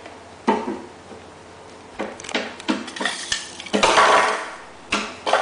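A baby's hands slapping and banging on a wooden coffee table: a sharp knock about half a second in, then a run of knocks from about two seconds on.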